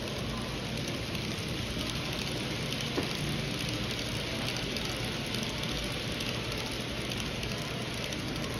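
N-gauge model train of 24-series sleeper coaches rolling along the track: a steady, fine rattling hiss of the small wheels on the rails, with one click about three seconds in.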